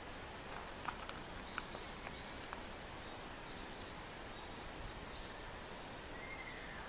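Forest ambience: a steady hiss with faint, scattered high bird chirps, a few sharp clicks in the first couple of seconds, and a faint short call, slightly falling in pitch, near the end.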